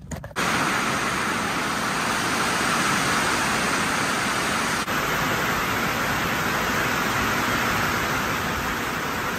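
Heavy thunderstorm rain pouring down, a dense steady hiss that starts suddenly about half a second in, with a brief dip about five seconds in.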